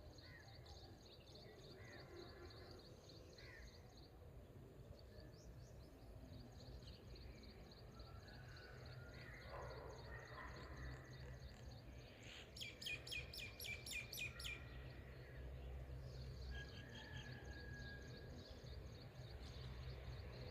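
Faint outdoor birdsong: scattered chirps and a steady, high, rapid trill, with one bird singing a quick run of about eight repeated notes about two-thirds of the way through. A low, steady background rumble lies underneath.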